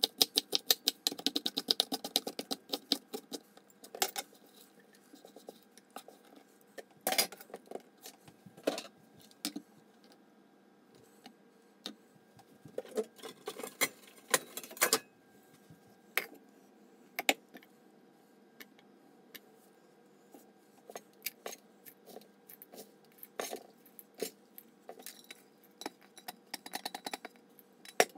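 A chef's knife chopping cabbage on a wooden cutting board, quick even strokes at about four or five a second, stopping about three seconds in. After that come scattered knocks and clinks of kitchen things being handled and set down on the board.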